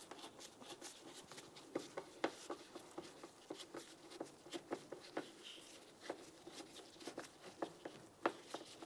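Faint, irregular clicks and taps of screws being started into the lower edge of a plastic interior door panel by hand and screwdriver.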